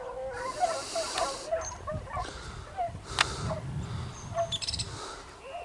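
Pack of fox-hunting dogs yelping and baying in many short, overlapping cries, with a sharp click about three seconds in.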